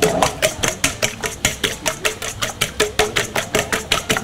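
Eggs being beaten in a stainless steel mixing bowl: a metal utensil clinks against the bowl in a fast, even rhythm of about six or seven strokes a second, each with a light ring from the bowl.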